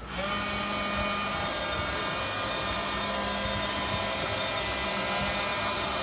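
Battery-powered toy microwave oven switched on and running: a steady, even hum that starts abruptly and holds one level throughout.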